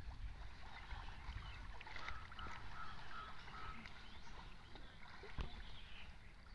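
Faint sloshing and splashing of river water as men wade and haul a drag net, over a steady low rumble like wind on the microphone. A single sharp knock comes about five seconds in.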